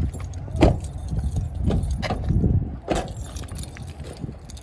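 Car keys jangling, with several short knocks and thumps over a steady low rumble; the two loudest thumps come about half a second in and near three seconds in.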